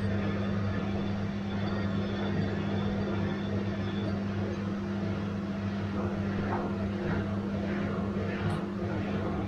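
Bosch washing machine running with a steady mechanical hum; from about six seconds in, a faint swishing repeats about twice a second over it.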